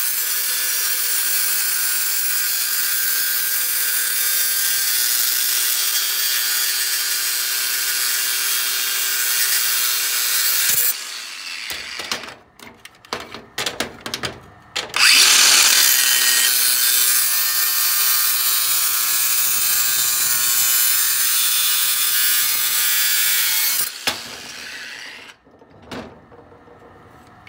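A 60-volt DeWalt cordless angle grinder cutting through a metal caulking gun with a steady, high grinding hiss. It makes two long cuts of about eleven and nine seconds, separated by a few seconds of short knocks and clatters. A little before the end the grinder stops and spins down.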